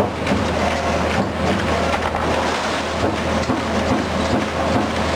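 1989 Finn-Power TP 3015 CNC turret punch press running: a steady low machine hum with a constant clatter of short irregular clicks and knocks.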